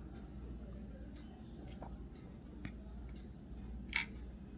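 Faint scattered clicks and taps from handling a 1:32 die-cast model car, with one sharper click about four seconds in. A faint steady high tone and low hum run underneath.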